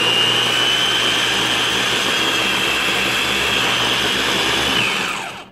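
Ninja electric food chopper running, grinding cooked chicken and chana dal into a fine paste. It gives a steady high motor whine that winds down and stops near the end.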